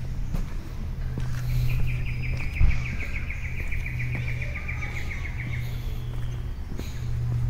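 A bird's long rapid trill, lasting about four seconds and falling slightly in pitch, over a steady low hum, with a single bump about two and a half seconds in.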